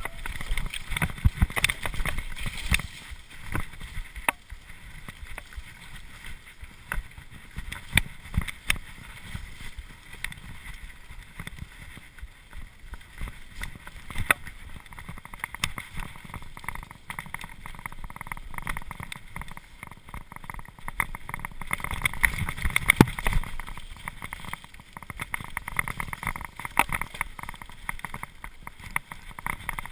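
Cube LTD Pro mountain bike riding fast down a dirt trail: steady tyre rumble and wind on the microphone, broken by frequent sharp clicks and knocks as the bike rattles over bumps and roots.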